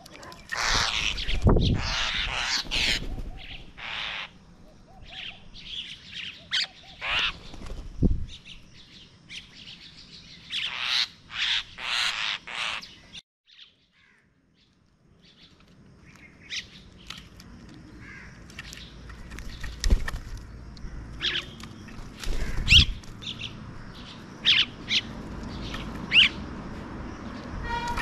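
A flock of common mynas calling, with many short, harsh chirps and squawks that overlap in quick succession. The calls drop out to near silence for about two seconds around the middle.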